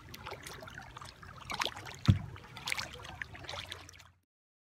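Kayak paddle strokes, water splashing and dripping off the blades, over a low rumble of wind on the microphone. There is a single thump about two seconds in. The sound cuts off abruptly just after four seconds.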